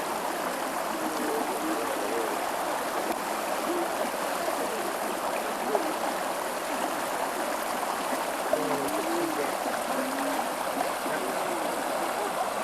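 Steady rush of flowing water, with faint distant voices underneath.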